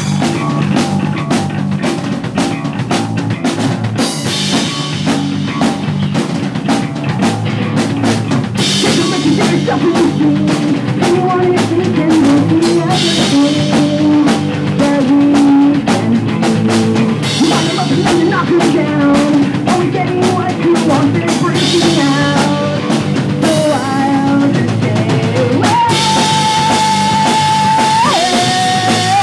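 Pop punk band playing live at full volume: drum kit, electric guitars and bass playing together at a driving rock beat.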